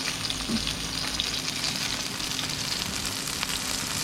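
Fish cakes frying in hot oil in a pan: a steady sizzle with scattered small crackles.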